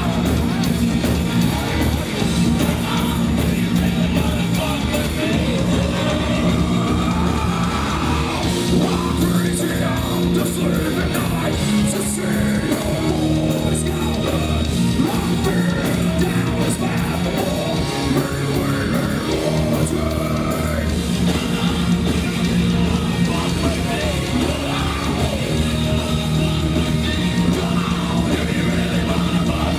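Live heavy metal band playing: loud guitars, drum kit and vocals, heard from within the audience.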